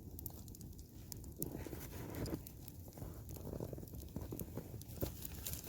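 Campfire of logs catching and crackling, with sharp irregular pops over a low steady rumble.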